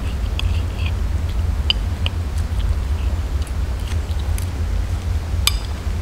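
Cutlery clinking on plates with chewing, in scattered light clicks, the sharpest about five and a half seconds in, over a steady low rumble.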